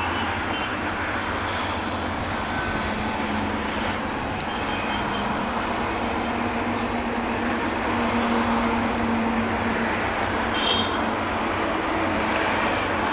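Steady, even rumble of vehicles: road traffic mixed with a train running away into the distance. A few brief, faint high chirps sound over it.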